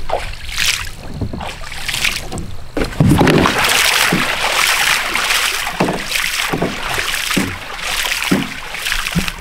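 A released musky thrashing at the surface, its tail splashing water in a series of splashes. The biggest splash comes about three seconds in, as the fish kicks off into the river.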